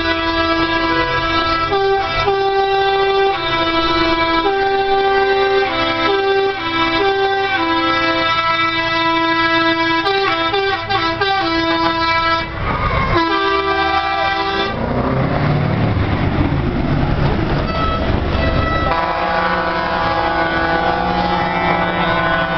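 Scania show truck's musical air horns playing a tune of short and held notes, followed by a rising glide about twelve seconds in. Then the truck's diesel engine runs loudly as it passes for a few seconds, and steady horn tones sound again near the end.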